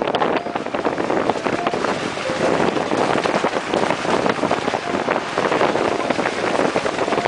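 Moving vehicle heard from inside: steady road and wind noise with wind buffeting the microphone and a constant patter of small rattles and knocks.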